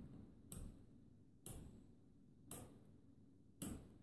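Speed switch of an unplugged Patton high-velocity fan clicked through its settings: four sharp clicks about a second apart, with the motor silent.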